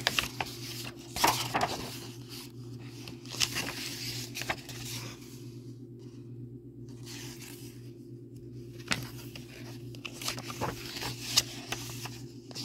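Book pages being turned and handled: irregular papery rustles and flicks, over a steady low hum.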